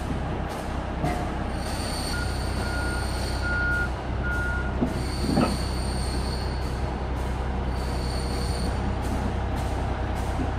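Heavy crawler bulldozer's diesel engine running under load with a steady deep rumble while the machine climbs onto a transport trailer. A backup alarm beeps about four times early on, a high squeal comes and goes three times, and there is one knock about halfway through.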